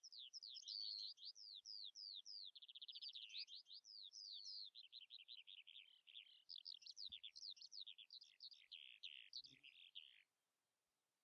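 Faint songbird song: a quick, unbroken run of high chirps and short trills that stops shortly before the end.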